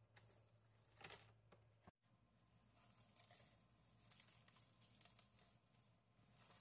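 Faint crinkling and rustling of plastic cling film being handled over a bowl, with one louder crackle about a second in and a short dropout about two seconds in. A low steady hum sits underneath.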